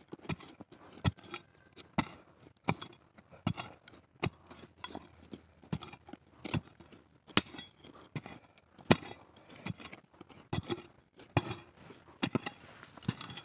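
A small metal hand digging tool stabbing and scraping into packed soil, a sharp stroke a little more than once a second in a steady rhythm.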